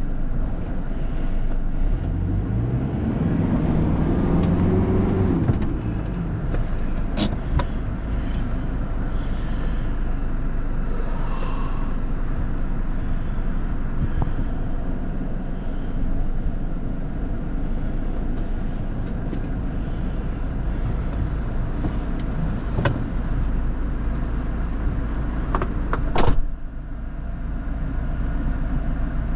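Off-road 4x4 vehicle driving on a rough track, with a steady engine and ground rumble. A few seconds in the engine revs up and back down. A few sharp knocks follow, the loudest near the end.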